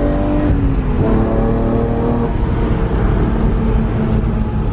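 BMW E46 M3's S54 straight-six running through a catless exhaust with a Status Gruppe V1 rear muffler, a loud, bassy note. The engine note drops in pitch about half a second in, then holds steady.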